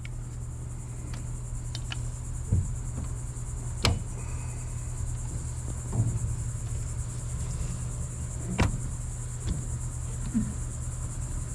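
Steady high insect chirring over a low steady hum, with about six short knocks and clicks scattered through it, the loudest about four and eight and a half seconds in, as the small outboard motor is worked down from its tilted-up position.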